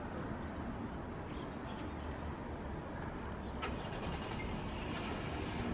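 Steady low rumble of a distant jet airliner's engines as it flies its landing approach with gear down. A brief click about three and a half seconds in and a faint high chirp near the end.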